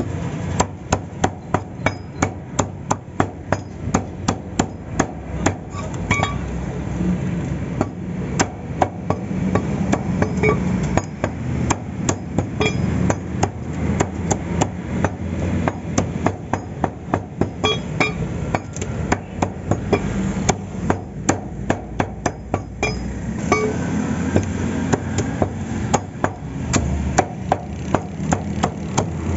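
Heavy meat cleaver chopping chicken on a wooden log chopping block: fast runs of sharp chops, about three a second, broken by short pauses, over a steady low background noise.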